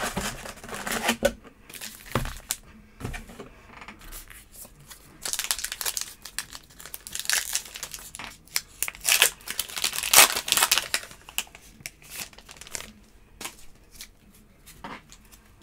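Baseball card pack wrappers crinkling and tearing as packs are handled and ripped open. The rustling comes in irregular bursts and is busiest in the middle.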